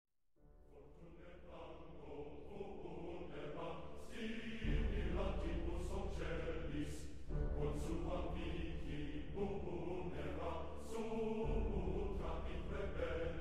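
Music: a new track fades in from silence over the first few seconds, with a heavy bass line entering about four and a half seconds in.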